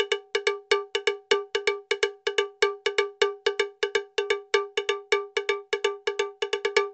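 A bright metallic percussion note struck over and over in a quick, slightly uneven rhythm, about four to five strikes a second, each at the same pitch and dying away quickly.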